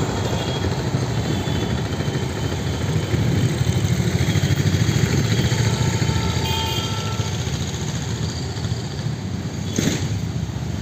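Steady, low, fast-pulsing engine rumble that swells a few seconds in and eases off toward the end, with one sharp knock near the end.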